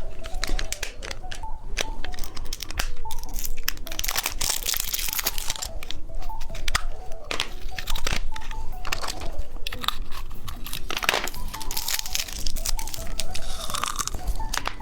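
Dense, irregular crinkling and crackling from popping candy being opened and eaten, with soft background music underneath.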